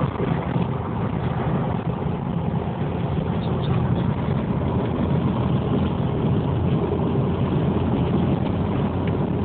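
Strong dust-storm wind rushing and buffeting the microphone as a steady low roar.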